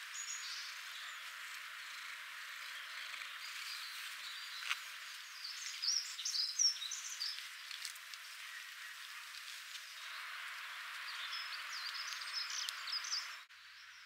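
Outdoor garden ambience with small birds chirping: a burst of quick high chirps about six seconds in and more near the end, over a steady background hiss. A single sharp click comes a little before the first burst, and the background drops abruptly to a quieter hush just before the end.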